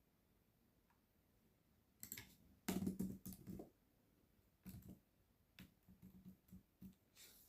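Faint computer keyboard typing and clicks: nothing for the first two seconds, then a quick flurry of keystrokes about three seconds in, the loudest part, followed by scattered single clicks.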